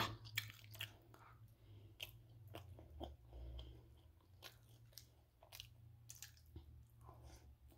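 A child chewing orange chicken close to the microphone: faint, irregular crunchy clicks and mouth sounds.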